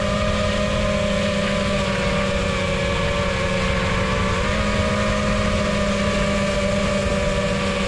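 iFlight Titan XL5 five-inch FPV quadcopter's motors and propellers whirring steadily in flight, the pitch stepping up slightly about halfway through.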